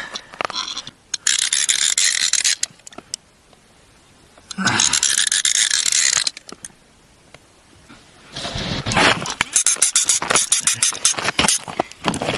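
Small ice-fishing reel ratcheting: two short bursts of rapid clicking, then a fast run of clicks for the last four seconds.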